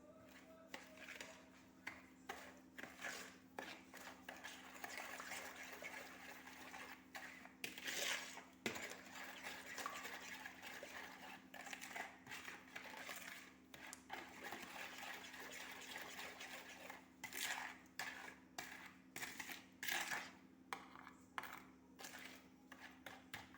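Kitchen utensils and dishes clinking, knocking and scraping, with a rustling hiss, as sugar and squeezed lemon are handled in a bowl. A faint steady hum sits underneath.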